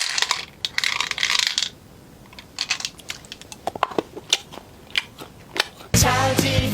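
A snack being eaten up close: a brief rustle or crinkle about a second in, then a run of small, sharp crunches and clicks. A sung jingle cuts back in near the end.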